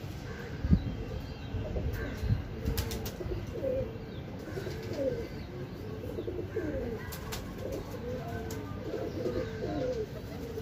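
Domestic pigeons cooing over and over, several birds overlapping, with a few sharp clicks and a single low thump about a second in.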